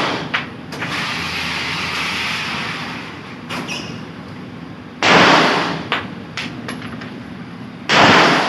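Two loud gunshots about three seconds apart, each dying away in a short ring. A stretch of steady hiss and a few small clicks come before the first shot.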